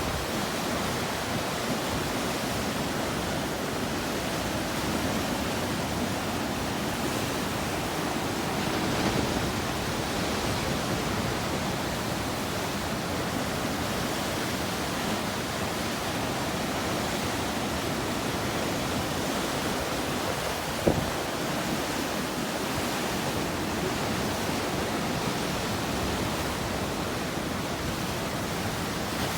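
Ocean surf breaking, a steady even rush of water noise, with one brief knock about two-thirds of the way through.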